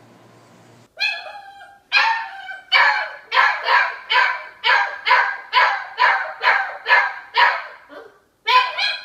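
A puppy barking over and over in short, high yips, about two a second. The barking starts about a second in and breaks off briefly near the end.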